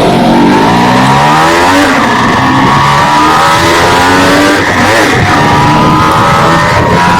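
Two-stroke engine of a Suzuki Samurai motorcycle revving hard, its pitch rising and falling several times as the throttle is worked, with a dip about five seconds in.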